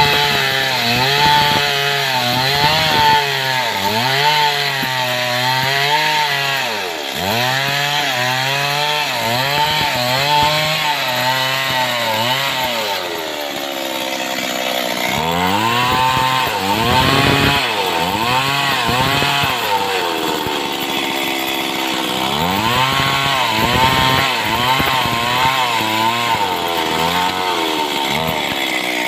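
Stihl two-stroke chainsaw ripping a log lengthwise into boards, running loud under load. Its engine pitch sags and recovers every second or two as the chain bites into the cut.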